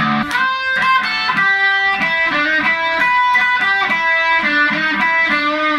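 Electric guitar, a sunburst Stratocaster-style, played by hand as a slow run of single picked notes, about two notes a second.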